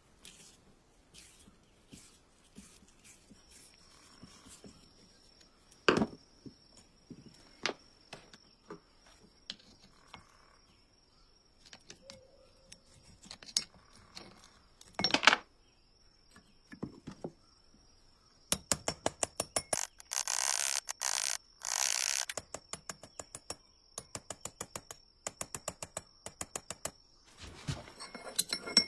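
Hand work on an old household sewing machine: scattered clicks and knocks of metal parts and tools, then a long run of rapid, evenly spaced clicks in the second half, broken by two short hissing bursts.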